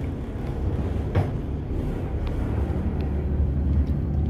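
Tugboat's diesel engines running hard as it pulls a barge off the berth, a steady low drone. One sharp knock about a second in.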